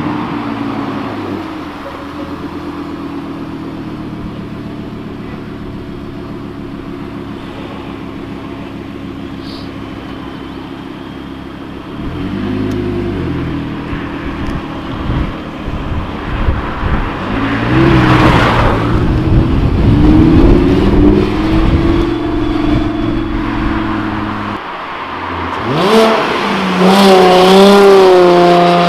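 Audi R8 Spyder's engine running past at steady revs, then louder and accelerating with rising pitch from about halfway through. Near the end a lowered VW Golf Mk4 hatchback's engine is revved, its pitch going up and down.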